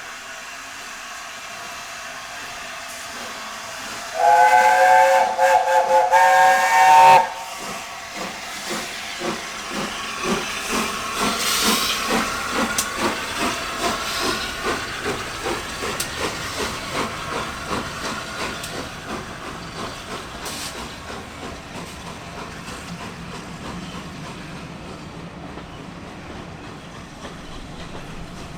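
Steam locomotive 60163 Tornado, a Peppercorn A1 Pacific, sounds a whistle of several notes together for about three seconds. It then pulls away, its exhaust beats quickening and then fading as it draws off.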